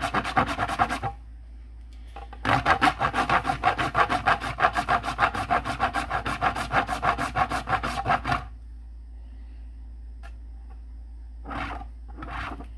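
Purple wax candle rubbed quickly back and forth across a flat metal cheese grater, a rapid rasping scrape at about four strokes a second. The grating stops about a second in, starts again a second or so later, and stops for good about eight seconds in.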